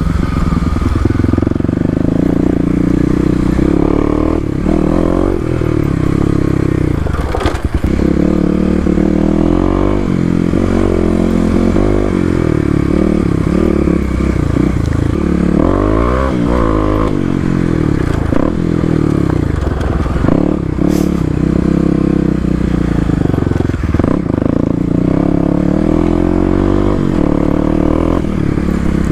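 Kawasaki KLX250 single-cylinder four-stroke dirt bike engine with an FMF Q4 exhaust, revving up and down as it is ridden along a dirt trail. A couple of sharp knocks come through, one about a third of the way in and one about two-thirds in.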